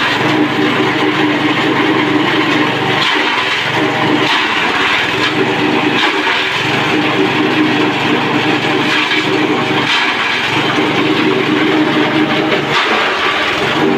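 Grass chopper driven by a 5.5 hp engine running steadily under load while grass stalks are fed in and chopped. The constant engine drone is broken every few seconds by brief dips and crackling as each armful is cut.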